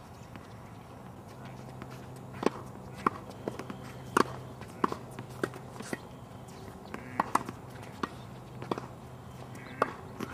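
Tennis balls struck by a racket and bouncing on a hard court: a string of sharp pops, irregularly spaced about half a second to a second and a half apart, over a faint low steady hum.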